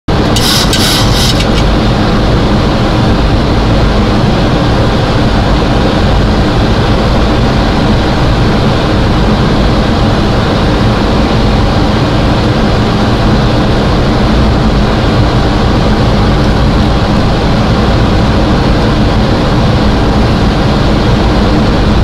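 Steady, loud rush and rumble of a Boeing 737 flight deck on final approach: airflow over the nose and the engines at approach power, heard from inside the cockpit. A brief high hiss rises over it in the first second or so.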